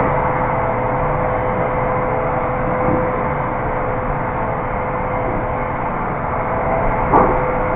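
Steady hissing noise with a constant hum through it.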